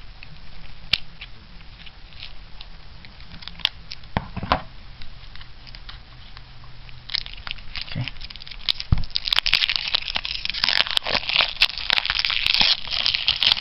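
Plastic shrink wrap on a deck of trading cards crinkling and tearing as it is worked loose and peeled off by hand. At first there are scattered crackles, then from about nine seconds in a dense, louder run of crinkling as the wrap comes away.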